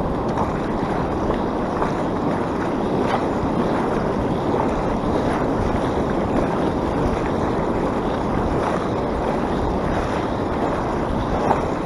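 Steady wind noise on the microphone over the wash of shallow surf.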